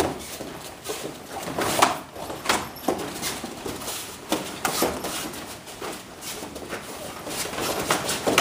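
Irregular thuds and slaps from light-contact karate sparring: bare feet stamping and shuffling on foam mats, and strikes and blocks landing on the fighters' gis.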